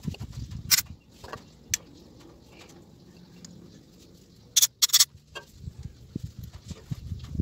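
A couple of sharp clicks from handling a motorcycle throttle body, then two short hissing sprays from an aerosol cleaner can about four and a half seconds in.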